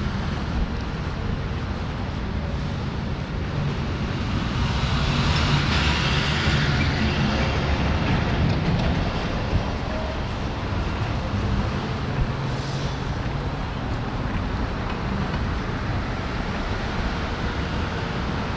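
City street traffic: a steady rumble of cars running past on the road, with one vehicle passing louder about five to eight seconds in.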